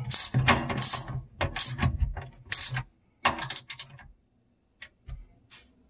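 Socket ratchet wrench clicking in quick runs as the bolt on a garbage disposal's discharge-pipe flange is tightened. The clicking breaks off briefly about three seconds in, then ends with a few single clicks.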